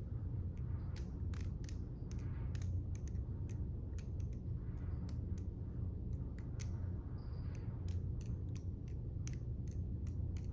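Balisong butterfly knife being flipped, its handles clicking and clacking against each other and the pivot several times a second in an irregular rhythm, over a steady low hum.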